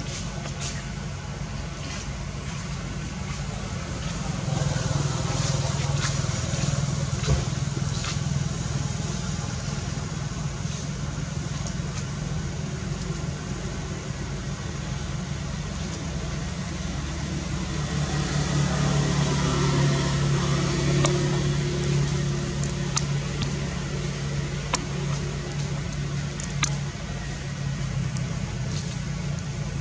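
Low, steady motor engine hum that swells louder twice, with scattered small clicks.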